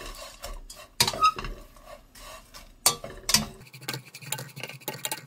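Two wooden spatulas tossing small dried anchovies around a dry nonstick frying pan, dry-roasting them: a rustling scrape of the crisp little fish with irregular clacks of wood against the pan. Sharper knocks come about a second in and around three seconds.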